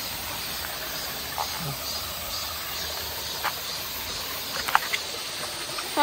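Shallow mountain stream running over rocks, a steady rushing hiss of water, with a few short faint high-pitched blips.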